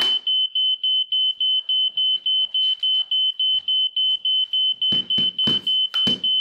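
Smoke alarm beeping rapidly, one high piercing tone pulsing about four times a second. Near the end come a few sharp knocks of a broom handle jabbing at it, and the beeping cuts off suddenly.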